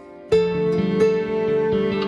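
Background music on plucked acoustic guitar: a chord dies away, then a new chord is plucked about a third of a second in, followed by single picked notes.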